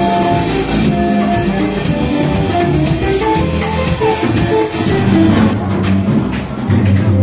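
Instrumental background music with melodic held notes; a steady drum beat comes in near the end.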